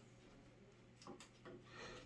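Faint clicks and a short scrape from a flathead screwdriver working the screws of a light-switch wall plate, over a low steady hum.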